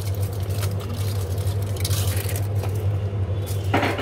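A steady low hum, like a small electric motor or appliance running, with a few faint clicks and knocks.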